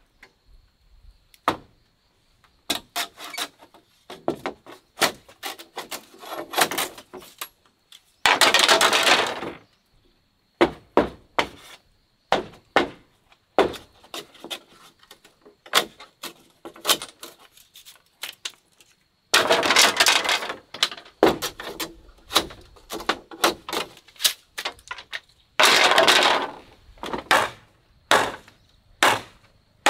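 Machete splitting green bamboo into strips: sharp knocks of the blade on the cane, and three longer crackling tears as a split runs down its length.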